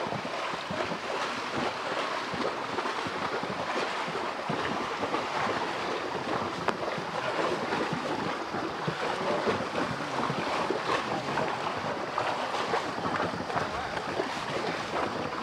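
Water splashing and churning as a pair of oxen wade through floodwater pulling a wooden cart, with wind on the microphone.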